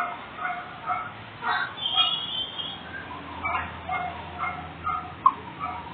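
Short, repeated animal calls, several a second, with a sharp click near the end.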